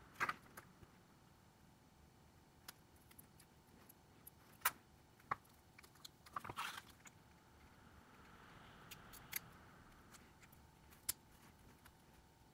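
Small, sharp clicks and taps, spread a second or two apart, of tools and parts being handled while a Huawei Mate 20 Pro smartphone is taken apart, over a faint hiss.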